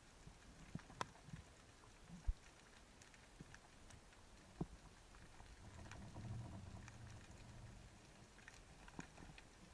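Faint underwater ambience heard through a camera's waterproof housing: a soft hiss with scattered sharp clicks and crackles. A low rumble swells for a couple of seconds about midway.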